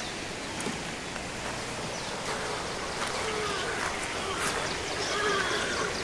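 Steady rushing of a river flowing past, with faint voices in the background in the second half.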